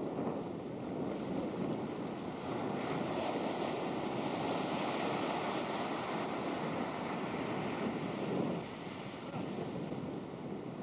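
Ocean surf breaking and washing up the beach, with wind buffeting the camcorder microphone. A wave's rush swells louder from about three seconds in and eases near the end.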